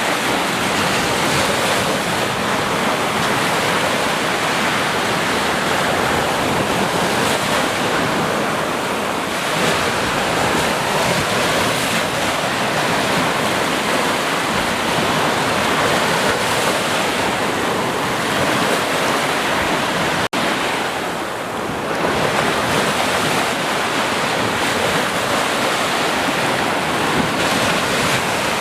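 Sea surf: waves washing and breaking in a continuous rushing roar, interrupted once by a momentary break about two-thirds of the way through.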